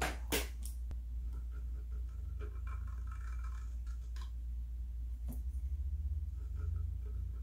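Sharpie paint pen scratching and squeaking as its tip is drawn along lines on painted wood, in stretches, with a few sharp clicks at the start and another about five seconds in.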